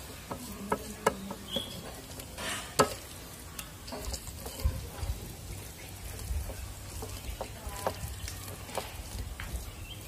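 Hands kneading wet coriander masala paste on a stainless steel plate and rubbing it onto a whole pomfret: soft wet squelching with scattered light clicks and taps against the metal plate, one sharper tap about three seconds in.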